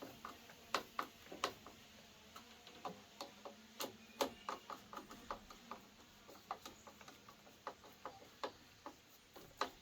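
Light, irregular clicks and small taps of hand work on a string trimmer's handle clamp, a few per second, as its screws are fitted and tightened.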